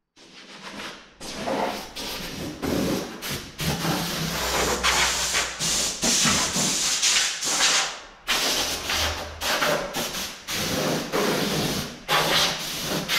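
Compressed-air tool on the shop air line running in on-off bursts, a loud hissing rush of air with rough sanding against the truck cab's rusty wheel-arch sheet metal and filler.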